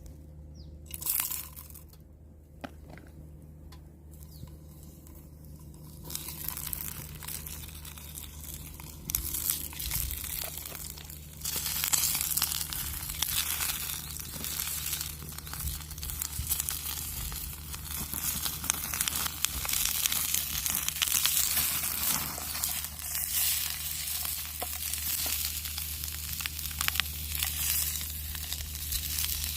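Food frying in a pan over a small campfire, sizzling and crackling. It starts about six seconds in and grows louder about twelve seconds in, with a steady low hum underneath.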